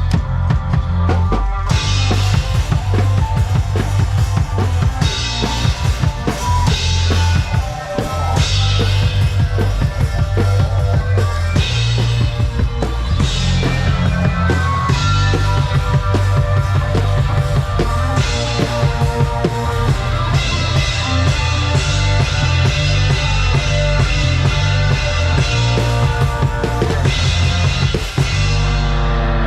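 One-man band playing: a drum kit's kick and snare keep a steady beat under other instruments, with a brief break near the end.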